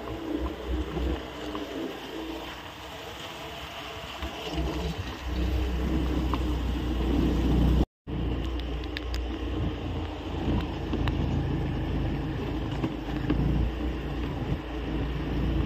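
Motorbike engine running steadily as it is ridden, with road and wind noise. The sound cuts out completely for a moment about eight seconds in.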